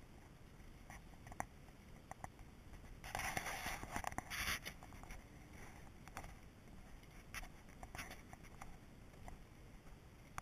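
Footsteps on the planks of a wooden footbridge: scattered light knocks, with a burst of rustling and scraping lasting a second and a half, about three seconds in.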